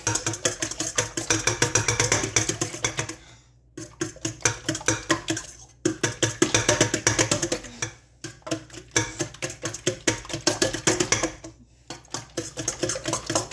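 A fork beating eggs in a stainless steel mixing bowl: rapid metal-on-metal clicking with the bowl ringing faintly, in about five runs broken by short pauses.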